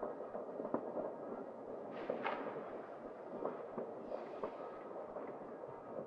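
New Year's Eve fireworks and firecrackers going off across the city: a constant crackle of scattered bangs and pops at varying distances, with a louder, sharper crack about two seconds in.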